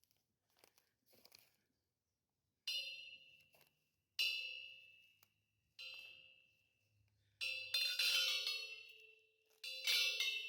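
Struck, bell-like tones from a traditional percussion instrument. Single strikes ring and fade about a second and a half apart, then several notes come close together near the end.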